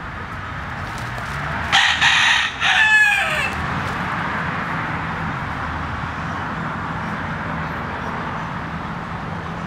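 A rooster crows once, about two seconds in, a loud call broken briefly in the middle and ending in a falling note. A steady hiss runs underneath.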